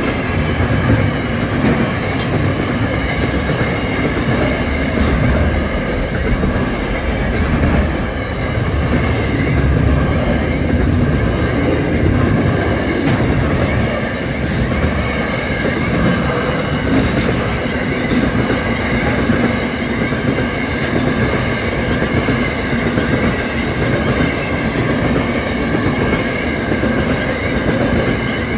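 Qube container freight train's loaded flat wagons rolling past at close range: a continuous, steady rumble of steel wheels on the rails, with faint steady high tones above it.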